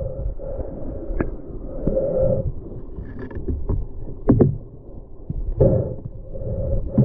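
Underwater sound picked up by a submerged camera: a steady low rush of river water with a gurgling hum that swells and fades twice. Several sharp knocks cut through it, the loudest a close pair about four and a half seconds in, as the hand-held metal pole strikes the rocky bottom.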